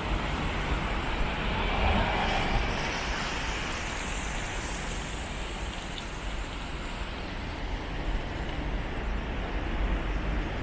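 Road traffic going by on a wet road: a steady hiss of tyres over a low rumble, with a vehicle swelling louder as it passes between about one and five seconds in.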